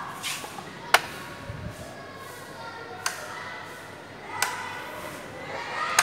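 A few sharp, single clicks about a second or more apart, the loudest about a second in, with faint voices in the background.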